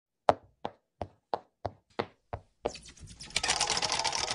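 Intro-animation sound effects: seven sharp clicks at about three a second, then a fast, dense rattling clatter that starts about two and a half seconds in and builds.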